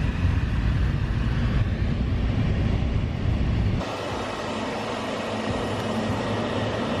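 Steady vehicle rumble with no speech, which changes abruptly about four seconds in to a steady hiss with far less low rumble.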